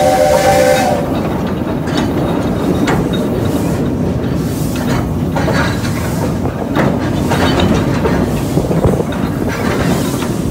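A narrow-gauge steam locomotive and tender rolling slowly over the rails, a steady rumble with irregular clanks and clicks from the running gear and rail joints. A two-note whistle cuts off about a second in.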